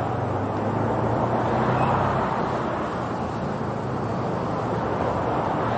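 Steady outdoor road-traffic noise with a low engine hum, a little stronger in the first half.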